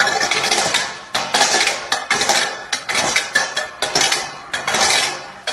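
A metal dog food bowl clattering and scraping over brick paving in quick, irregular clanks as a small dog pushes and drags it about.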